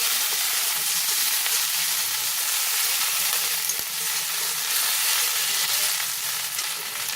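Onion paste and ginger-garlic paste, with fried onion and rice, sizzling in hot oil in a pan while being stirred and sautéed. It is a steady frying hiss.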